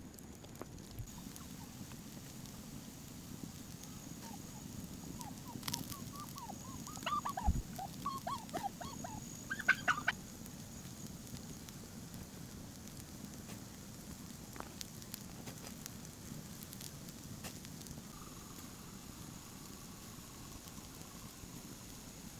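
A bird calling: a quick, gobbling run of short warbling notes lasting about four seconds, with a couple of sharp clicks near its end.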